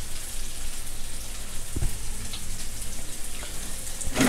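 Shrimp, chicken and shiitake mushrooms sizzling in oil in a nonstick wok: a steady, rain-like crackling hiss, with one soft low thump a little under two seconds in.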